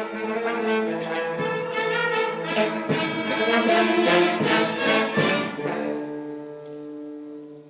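A student orchestra of strings and brass playing held chords, with a run of short accented notes in the middle. It then drops to a quieter held low chord that fades near the end.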